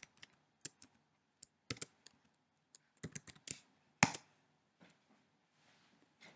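Typing on a computer keyboard: a handful of irregular, separate keystroke clicks, the loudest about four seconds in.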